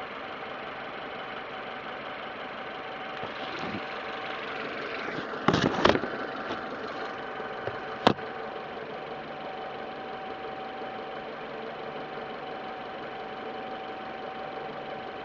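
Citroën C4 VTR engine idling with a steady whine over the running sound, broken by a short cluster of sharp knocks about five and a half seconds in and a single sharp click around eight seconds. The owner takes it for a strange noise coming from the alternator or timing-belt area.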